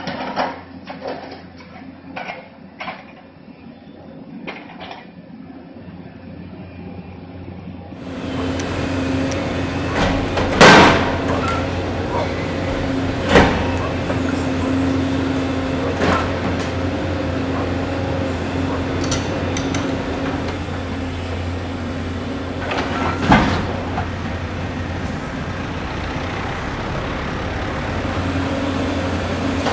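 Doosan tracked excavator demolishing a masonry building: a run of knocks as it works, then the diesel engine running steadily under load, with a few loud crashes of breaking masonry and rubble.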